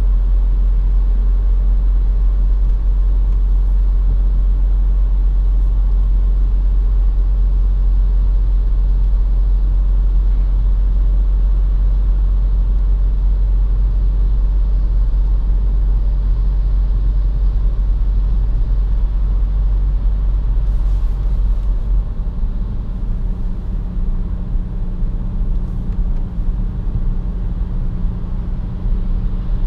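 Cabin noise inside an Opel Insignia Grand Sport with a 2.0 CDTI four-cylinder diesel, while driving: a steady deep rumble of road and engine noise. About 22 seconds in, the deepest rumble lessens and a steadier engine hum comes forward.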